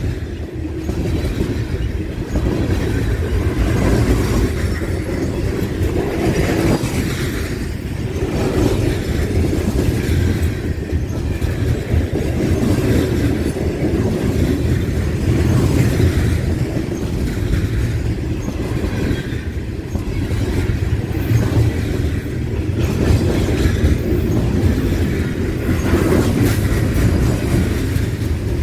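Coal cars of a freight train rolling past close by: a steady rumble of steel wheels on the rails.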